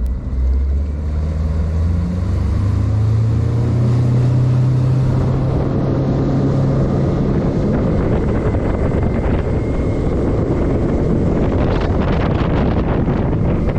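A boat motor speeding up, its hum rising in pitch over the first few seconds, then drowned under the rush of wind buffeting the microphone and water noise as the boat runs at speed.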